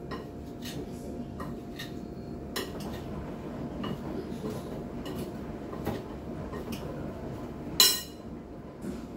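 Kitchen utensils clinking and scraping against a dish, in scattered light knocks with one louder clatter about eight seconds in, over a faint steady hum.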